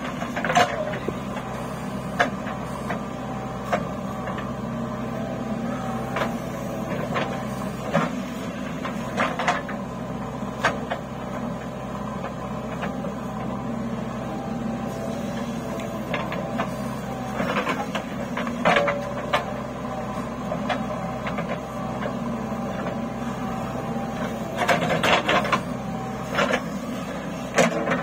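JCB 3DX backhoe loader's diesel engine running steadily as it works its loader and backhoe hydraulics. Sharp metal clanks of the bucket and dumped earth come every few seconds, with a quick cluster of them near the end.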